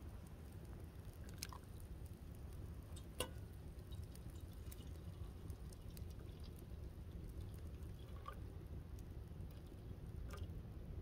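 Coffee being poured from a glass French press into a metal cup: a faint trickle of liquid, with a few light clicks.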